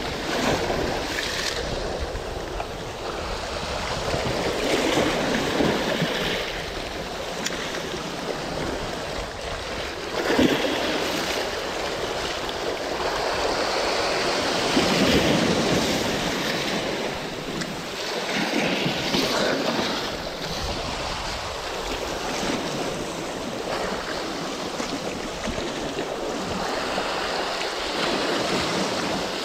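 Sea waves surging and washing against a rocky shore, swelling and falling back every few seconds.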